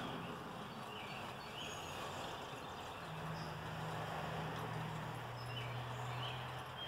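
Hand-cranked forge blower being turned to blow air into the coal fire, bringing the steel up to heat. It makes a low, steady hum that comes in about three seconds in. Birds chirp faintly now and then.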